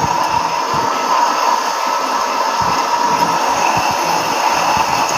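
Lathe running during a boring cut: a steady mechanical drone with a constant whine, and irregular low knocks underneath.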